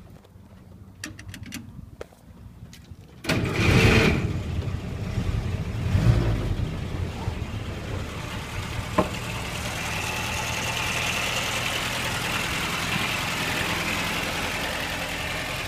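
The Willys CJ-2A Jeep's original four-cylinder flathead (Go Devil) engine starts about three seconds in after a few faint clicks, runs louder for a few seconds, then settles into a steady idle.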